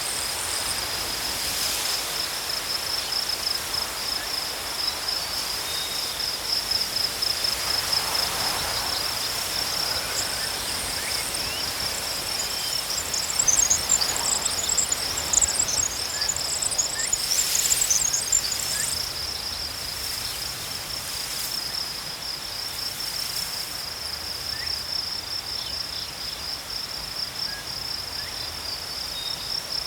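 Insects in grass chirring in a steady, fast-pulsing high trill, with small birds twittering over it now and then, most of it in the middle.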